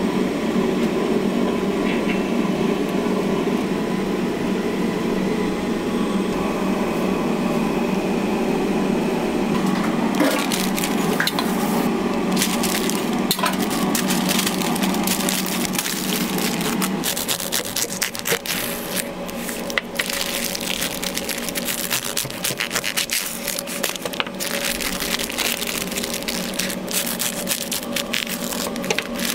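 A steady low hum at first. Then a paper wrapper crinkles around a toasted sandwich, and from about halfway a knife saws through the crisp toast and paper with a run of crackling and snapping.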